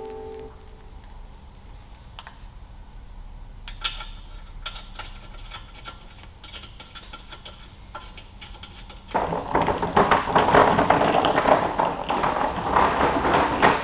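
Light metallic clinks and ticks as wheel hardware is handled at the bare brake hub. About nine seconds in, a much louder, continuous rattling starts: a wheeled tool cart rolling over a concrete floor.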